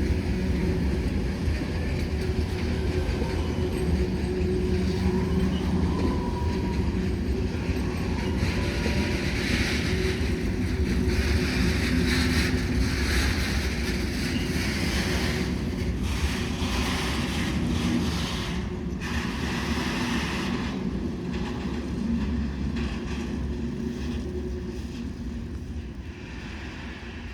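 Train passing on the tracks: a steady rumble of wheels on rail, with sharper knocking about two-thirds through, dying away near the end.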